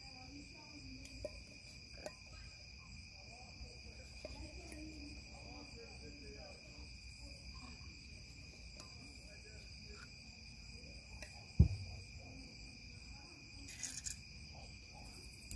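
Crickets trilling steadily in a constant high-pitched chorus, with faint distant voices underneath. A single sharp thump comes about three-quarters of the way through.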